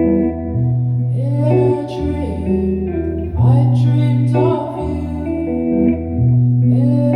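A live band playing a song: guitar over a steady repeating bass line, with a singing voice coming in about a second and a half in.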